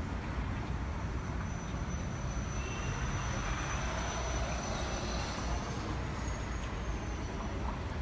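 Steady low background rumble with no distinct events, and a faint thin high tone through the middle.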